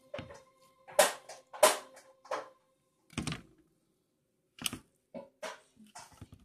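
Hands pressing and patting raw ground beef flat into a metal sheet pan: about nine irregular knocks and taps, the pan clunking under the hands. The two loudest knocks come about a second in, and the pan rings briefly after them.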